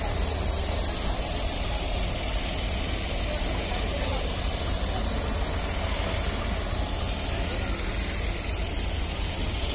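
Steady low rumble of an idling diesel locomotive amid railway platform ambience, with voices.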